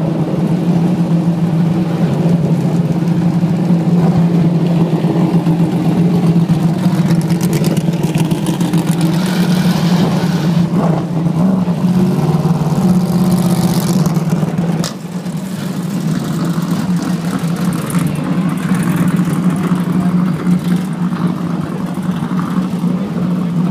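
Corvette C6.R GT race cars' V8 engines running at a loud, steady idle while the cars roll slowly. The sound drops somewhat about fifteen seconds in.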